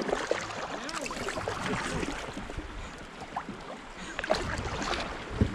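Kayak and canoe paddles dipping and stirring the water of a slow creek, with scattered small splashes and water lapping at the hull.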